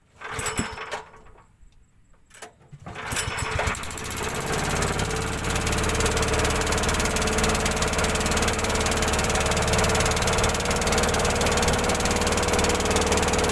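Small engine of a wooden longtail river boat being pull-started: two tugs on the starter cord, then it catches about three seconds in and runs steadily.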